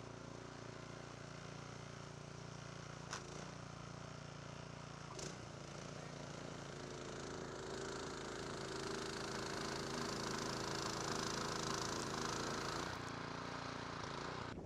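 Snowblower's small engine running steadily, getting louder for a few seconds past the middle, with two light clicks early on.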